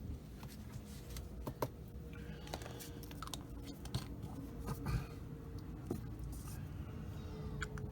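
Scattered small clicks, taps and handling noises of paint and airbrush gear being picked up and set down on a hobby bench, over a faint steady hum.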